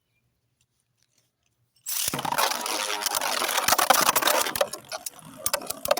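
After nearly two seconds of silence, spinning 3D-printed Beyblade tops start clattering and scraping against each other and the stadium, with many sharp hits.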